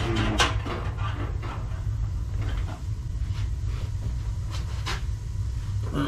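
Steady low rumble of a Burnham gas-fired atmospheric boiler running, with a few sharp clicks and knocks as a draft gauge tube is handled against the galvanized flue pipe.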